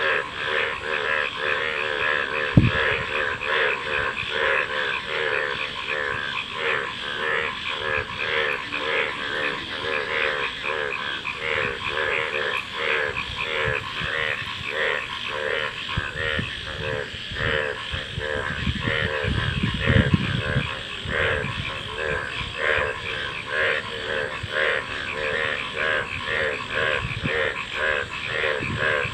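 A chorus of many frogs calling at once, a dense, unbroken stream of short, rapidly repeated croaking notes from several overlapping callers. A single sharp thump comes a couple of seconds in, and a low rumble passes about two-thirds of the way through.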